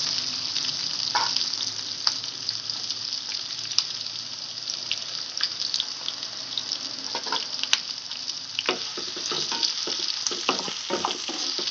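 Sliced onions sizzling in hot oil in a kadai, with scattered crackles and a wooden spatula scraping and stirring them; the stirring strokes come thick and fast in the last few seconds.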